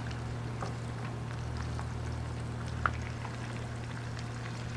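Floured garfish shallow-frying in hot oil in a frying pan: a steady sizzle with small crackling spits, over a steady low hum. A single light tap comes about three seconds in.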